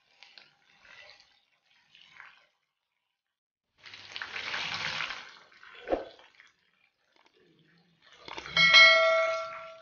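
Hot oil sizzling briefly around chicken pieces deep-frying in a kadai, with a single sharp metal knock about six seconds in. Near the end comes the loudest sound, a bright ringing bell ding that fades, the sound effect of a subscribe-button animation.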